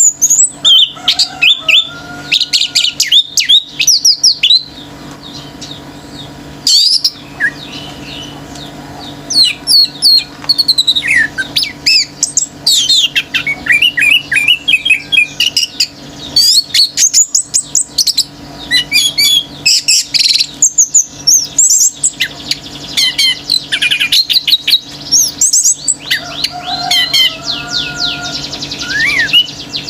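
Orange-headed thrush singing hard: a loud, rapid run of varied whistled notes, quick up-and-down slurs and fast trills, delivered in bursts with short pauses between.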